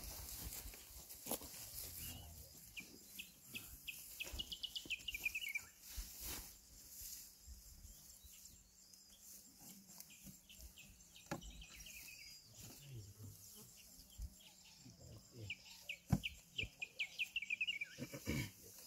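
A bird calling twice, each call a quick run of high notes falling in pitch. Under it is faint rustling of dry hay and a few knocks as a bale is tied in a wooden baling box.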